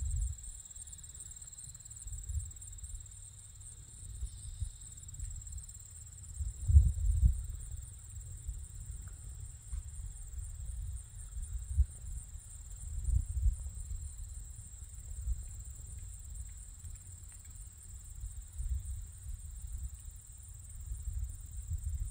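A steady, high-pitched outdoor insect chorus, trilling without a break, with irregular low gusts of wind buffeting the microphone, the strongest about seven and thirteen seconds in.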